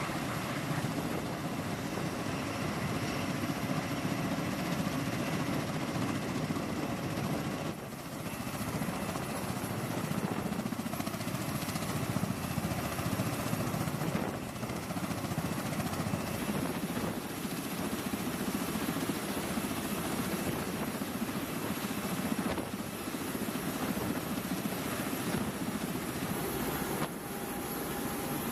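MV-22B Osprey tiltrotor running on the ground with its proprotors turning, its twin turboshaft engines and rotors making a steady, even rush of rotor and turbine noise. The level dips briefly at a few points, and a thin steady whine joins near the end.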